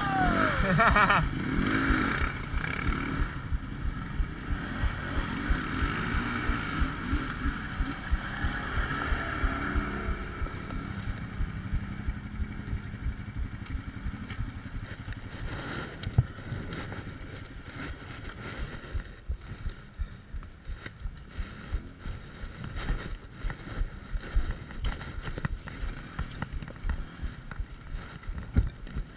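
ATV engines running as quads ride a muddy trail, with a quad revving up and back down close by in the first second or so. After that the ride goes on with the engine rumbling and frequent knocks and jolts over the ruts, a little quieter in the second half.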